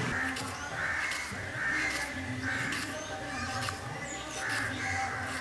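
Crows cawing repeatedly, with light clicks of a knife slicing vegetables against a wooden board.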